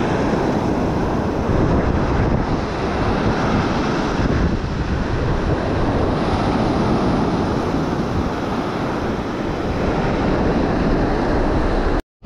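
Surf breaking on the beach, heavily mixed with wind buffeting the microphone, a steady loud rushing. The sound cuts out completely for a moment just before the end.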